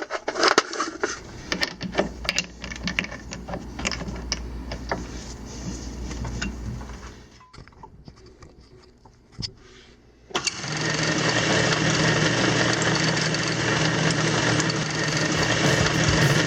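Workshop machine running with a low steady hum under many sharp metal clicks and taps, going quiet about seven seconds in. Background music starts about ten seconds in.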